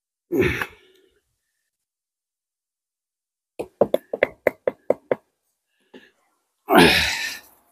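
A quick run of about eight sharp knocks on brick, roughly five a second, as a brick is worked in the wall, with a brief rush of noise shortly before and a longer one near the end.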